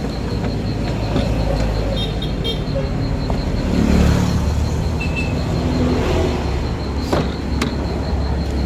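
A vehicle engine running with a steady low rumble, and two sharp clicks about seven seconds in.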